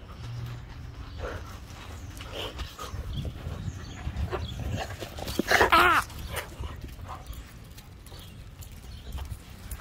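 A dog gives one short, loud whine with a wavering pitch about halfway through. Around it are small clicks and rustles from close handling.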